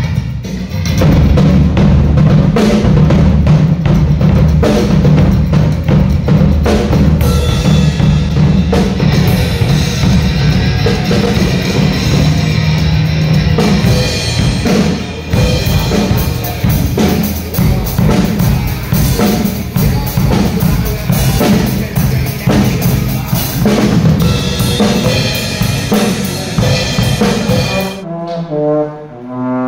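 Yamaha drum kit played hard and fast, with bass drum, snare and cymbals hit in dense patterns. Near the end the drumming stops, and a trombone begins playing a short run of separate notes.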